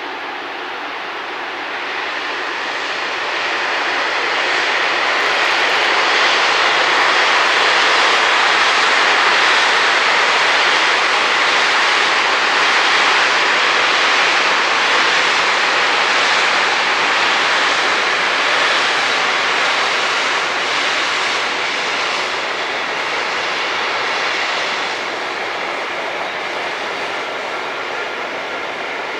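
Long intermodal freight train hauled by a Class 186 electric locomotive rolling past: a steady rush of wheel and wagon noise that swells over the first few seconds and eases off near the end.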